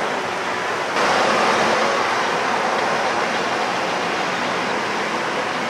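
Steady rushing of surf on the beach, a little louder about a second in.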